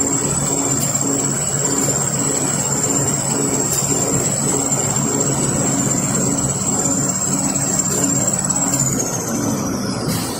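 Kitchen towel paper production line running: steady machine noise with a thin, high-pitched whine that fades near the end, and a few light clicks.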